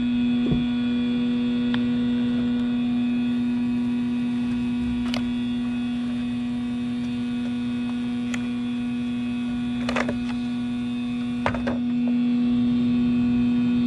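A steady, pitched hum, with a few light clicks and taps at the RC buggy's motor pinion gear as it is worked loose and knocked off.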